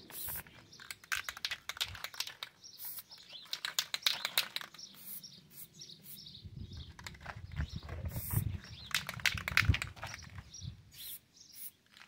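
Birds chirping, with rapid short clicks and some dull low knocks between about six and ten seconds in.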